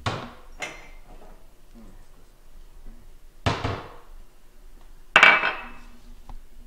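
Kitchen handling knocks: cabinet doors opened, then a ceramic bowl and a plastic drink-mix canister set down on a granite countertop. Four separate knocks, the loudest about five seconds in with a brief ringing, and a small click near the end.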